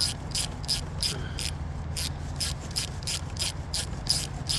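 Hand ratchet on a long extension clicking steadily, about four to five clicks a second, as it backs out the 10 mm nut, stud and all, that holds an ignition coil.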